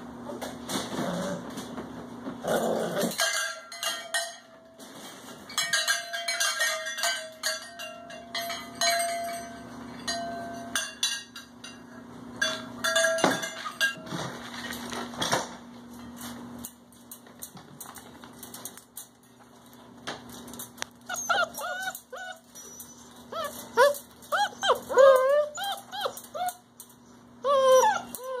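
Young puppies in a wire pen: scattered clicks and clinks through the first half, then from about 21 seconds a run of short high yips and whines.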